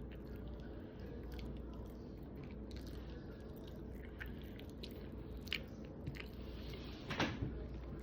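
Close-miked chewing and mouth sounds of someone eating, with small wet clicks and smacks and one louder smack about seven seconds in, over a steady low hum.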